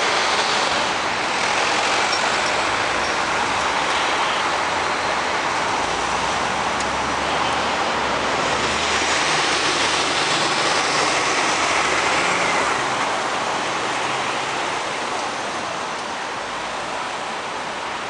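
Road traffic: buses and cars passing close by, a steady rush of engine and tyre noise that eases a little near the end.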